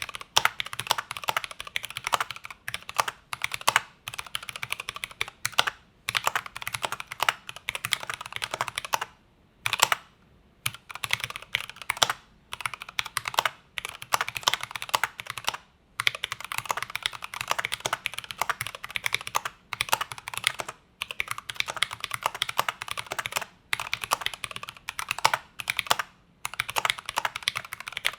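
Continuous typing on a stock Glorious GMMK Pro metal-bodied 75% mechanical keyboard, fitted with C3Equalz Kiwi tactile switches and its own stock keycaps: a rapid, steady stream of key clacks, with brief pauses about ten and sixteen seconds in.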